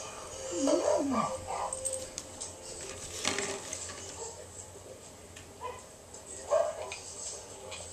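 Dog whimpering: short whines that slide up and down in pitch about a second in, a brief sharp knock about three seconds in, and a few more short cries near the end.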